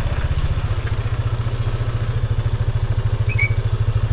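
Motorbike engine idling with a steady, rapid low putter.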